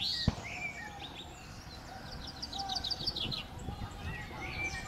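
Birds chirping in quick runs of short high notes over a low murmur of a crowd's distant voices, with one sharp knock about a third of a second in.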